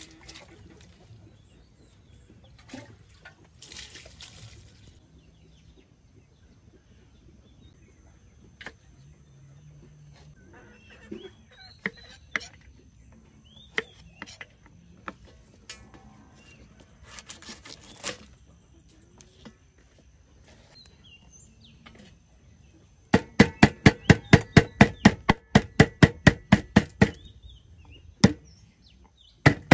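Rapid chopping with a heavy knife on a wooden chopping board, about five strikes a second, starting a little over twenty seconds in, running for about four seconds and starting again at the very end. Before it, a brief splash of poured water at the start and a few scattered light knife knocks.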